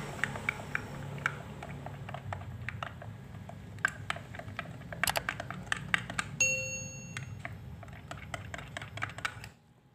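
Metal spoon stirring black coffee in a glass, clinking and tapping irregularly against the glass. A short ding sounds about six and a half seconds in, and the stirring stops about nine and a half seconds in.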